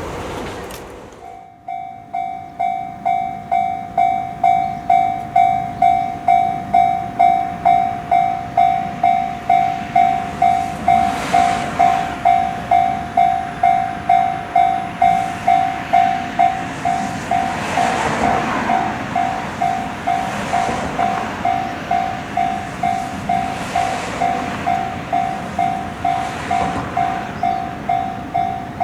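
Japanese level-crossing warning bell ringing "kan-kan" at a steady pace of a little under two strikes a second, starting about a second in. A train passes through the crossing from about ten seconds in.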